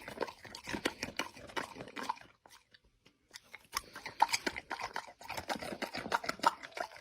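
A pet chewing something crunchy: irregular crunches and bites, with a short pause about two and a half seconds in.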